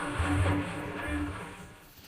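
Background music with a steady, repeating bass beat, fading out toward the end.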